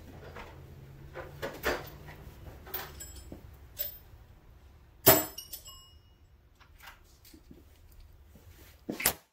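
Metal hand tools clinking and knocking as a ratchet and sockets are fetched and handled, with one loud metallic clank about five seconds in that rings briefly.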